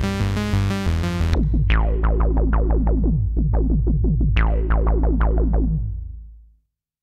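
GForce Axxess software synthesizer playing a buzzy bass-sequence preset. About a second and a half in, it changes to a 303-style acid bass sequence: plucked notes with a quickly closing filter over a steady deep bass. The sound fades out near the end.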